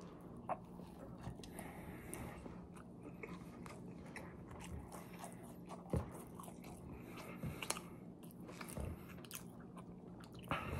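Close-up sounds of a person biting into a cheeseburger and chewing it, with wet mouth noises and occasional sharper clicks, one standing out about halfway through.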